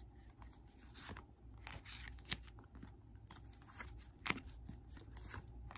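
Tarot cards being drawn from the deck and laid down one by one on a plush blanket: faint scattered clicks and scrapes of card stock, with a sharper snap about four seconds in.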